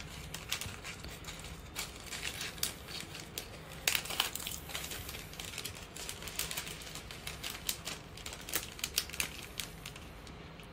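A clear plastic packaging bag crinkling while the links of a metal chain bracelet click against each other and the card, in many quick irregular ticks as the bracelet is packed.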